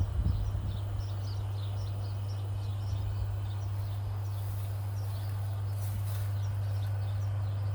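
Small birds chirping repeatedly over a steady low hum, with a brief knock or two right at the start.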